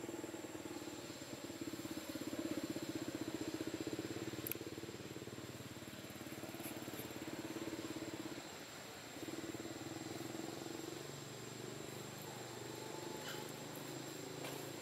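A steady, rapidly pulsing engine drone that dips briefly a little past the middle and then comes back, with a thin high whine and a few faint clicks.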